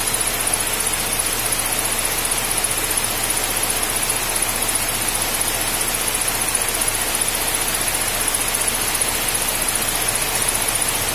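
Hyundai car engine idling steadily under an even whooshing noise with a thin high whine held throughout, the engine left running to purge trapped air from the cooling system through a bottle on the radiator neck.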